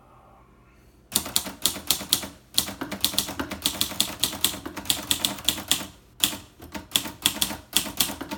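1953 Gossen Tippa portable typewriter typing a run of capitals with caps lock engaged: rapid sharp keystroke clacks starting about a second in, with two brief breaks.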